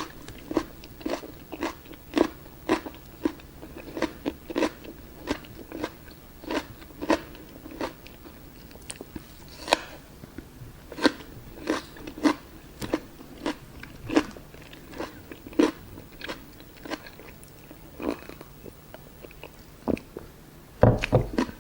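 Close-miked chewing of crisp, crunchy food: a steady run of sharp crunches, about one to two a second, with a low bump near the end.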